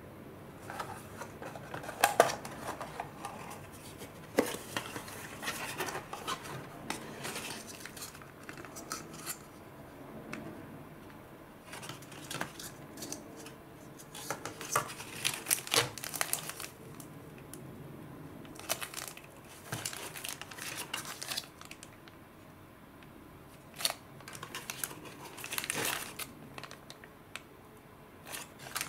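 Unboxing handling: a thin cardboard box opened and its flaps folded back, plastic and foil packets rustling and crinkling as they are lifted out, with irregular taps and clicks. A sharp tap about two seconds in is the loudest sound.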